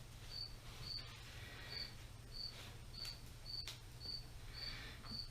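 A cricket chirping steadily, about one and a half short chirps a second, over a low steady hum, with a couple of faint clicks.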